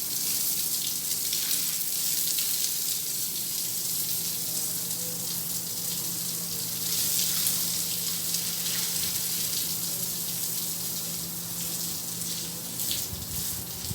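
Water spraying from a garden hose during washing down, a steady hiss with small splashy flickers, running at low pressure. A faint steady low hum sits underneath.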